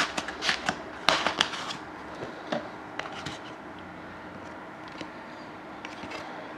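Trading cards and their packaging being handled: a quick run of clicks, snaps and rustles over the first two seconds, then quieter with a few scattered ticks.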